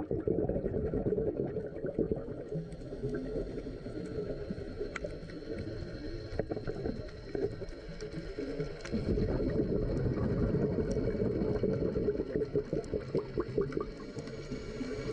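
Underwater camera audio of scuba exhaust bubbles gurgling and crackling, with a louder stretch of bubbling a little past the middle that lasts several seconds.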